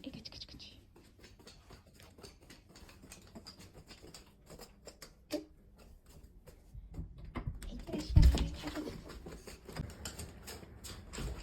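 Border collie's claws clicking and paws pattering as it moves about, with a louder thump and rustling about eight seconds in.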